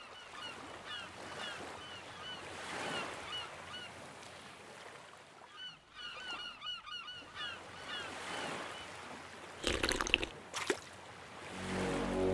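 Seaside sound effect: gulls calling in short, repeated squawks over a soft wash of surf. Two short, loud noisy bursts come about ten seconds in, and a swell of noise builds near the end.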